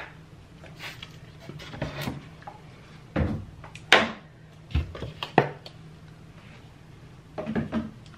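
Bottles and small items knocking and clunking against the wooden shelves of a pull-out under-sink rack as they are taken out, with a cluster of sharp knocks in the middle. A few quick squirts from a trigger spray bottle of cleaner.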